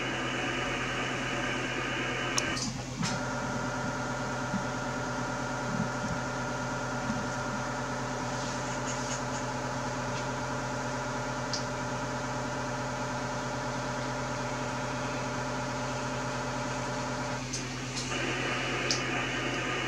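Hiss of 2-metre band noise from the Icom IC-9700's receiver, tuned for MSK144 meteor scatter. It cuts out about three seconds in, when the station switches to its 15-second transmit period, leaving a steady electrical hum of several tones. The hiss comes back near the end, when the radio returns to receive.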